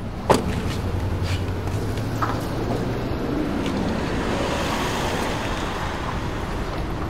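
City street traffic noise: a car drives past over a steady hum of traffic, with a sharp click shortly after the start.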